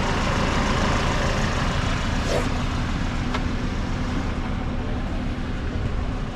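A tow truck's engine running steadily, with a constant low hum and a couple of faint clicks over it.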